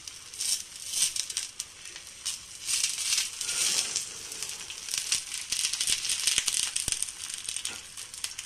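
Rice-flour pitha frying in oil on a flat tawa: a steady crackling sizzle, with a metal spatula scraping and clicking against the griddle as it works under the pancake's edges.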